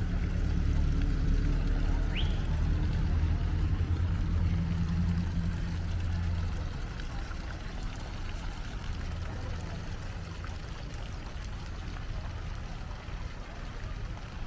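Small fountain jets splashing steadily into an ornamental pond, over a low steady rumble that eases off about six and a half seconds in. A single short rising chirp about two seconds in.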